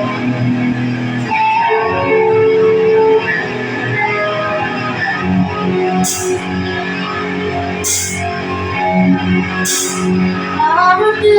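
A band playing a slow song live, led by guitar, with no vocals yet. Three cymbal strokes come roughly two seconds apart in the second half.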